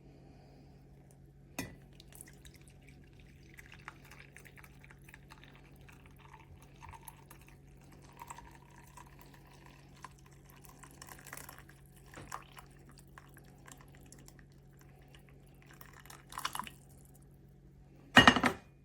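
Faint drips and light clinks of liquid being handled over a steady low hum, with a loud short noise near the end.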